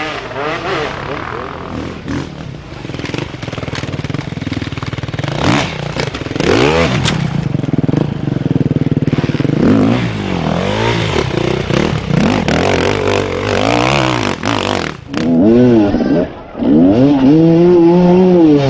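Enduro dirt bike engines revving hard and falling back again and again, the pitch sweeping up and down as the bikes labour up a steep dirt climb. The surges are loudest near the end.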